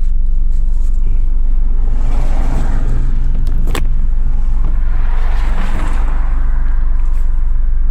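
Car engine idling with a steady low rumble, heard from inside the cabin, with a hiss swelling twice and a sharp click about halfway through.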